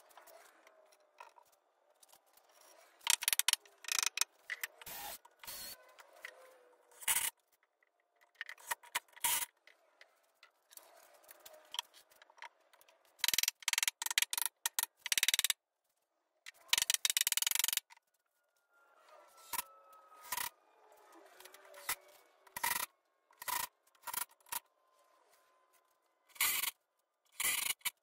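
Irregular knocks, scrapes and rubbing from assembling an oak plywood cabinet: mallet taps on the panels, a rag wiping off glue, and short loud runs of a cordless drill driving screws.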